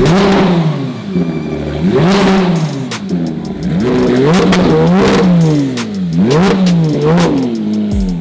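Porsche 911 GT3 flat-six engine breathing through a titanium race exhaust, revved up and let fall back about six times while the car stands still.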